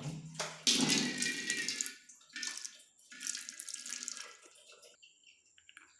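Hot water running from a tap fed by an instant electric water heater, in two gushes of about a second each, then fading away.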